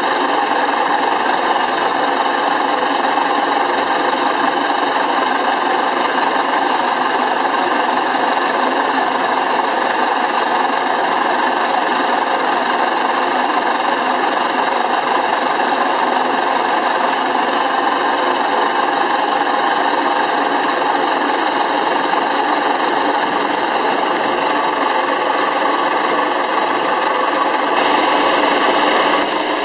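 Small Pence Bull Pup steam engine, a steam shovel swing engine, running steadily at speed with an even mechanical clatter.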